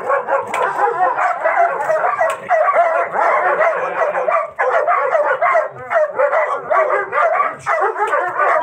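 German Shepherd barking almost without a break, aggressive barking at a decoy during bite and protection training.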